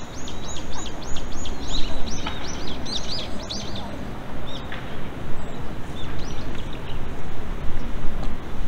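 A bird singing a quick series of arching high chirps, about four a second, for the first three seconds or so, then a few scattered calls, over steady low background noise.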